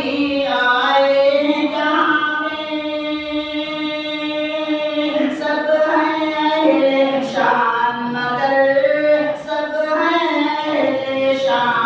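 A man singing a devotional Islamic poem solo and unaccompanied into a microphone, in long held notes with short breaks between phrases.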